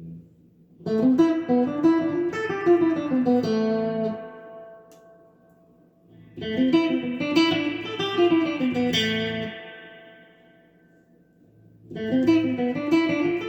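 Mahogany guitar playing the same short picked phrase three times back to back, its single notes climbing and then falling and left to ring out, with a short pause between takes. The repeats compare a few of the guitar's sounds.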